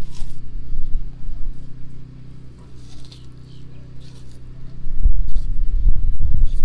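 African spurred (sulcata) tortoise biting into and chewing a wedge of watermelon: a few short wet crunches of the juicy flesh, over a steady low hum. A loud low rumble sets in about five seconds in and is the loudest sound near the end.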